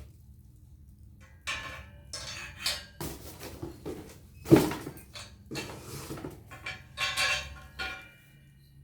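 Parts of a mini rack being handled while it is unboxed: hard pieces clattering and knocking together in irregular bursts, one knock much louder about halfway through, and the last strikes ringing briefly.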